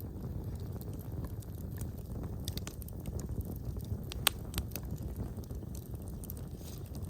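Fire burning in a fireplace: a steady low rush of flames with scattered crackles and pops, one sharp loud pop about four seconds in.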